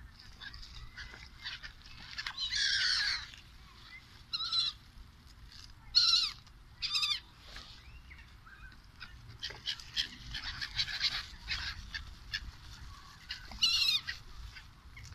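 A flock of gulls calling in flight, some single and some overlapping. A few loud calls stand out, and a busy burst of many calls comes in the second half.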